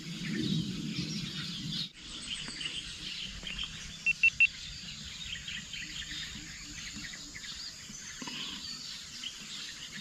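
Outdoor ambience of many small birds chirping and insects buzzing faintly around a plantation clearing, with three quick high-pitched notes of one pitch about four seconds in.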